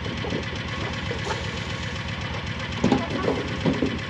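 Small engine running steadily with an even, rapid low pulse. A few short, louder knocks or clatters are heard about three seconds in.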